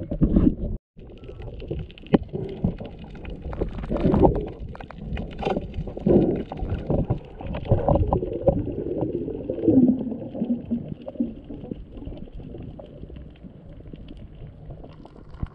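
Muffled underwater sound through an action camera's waterproof housing: irregular low gurgling, water movement and bumps as a spearfisher moves over the reef, with a brief gap about a second in.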